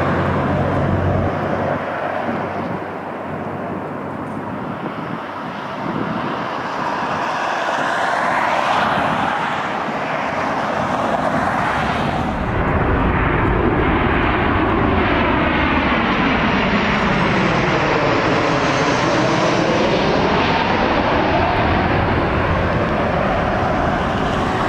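Jet engines of Boeing 737 airliners landing: a steady rushing jet noise that steps up in loudness about halfway through, with a sweeping fall and rise in tone as an aircraft passes close.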